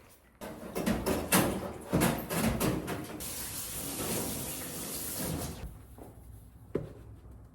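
Household clattering and knocks, then a steady hiss for about two and a half seconds, and a single click near the end.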